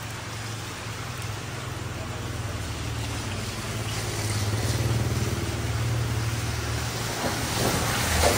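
A motorcycle engine running steadily, its low hum growing gradually louder over several seconds.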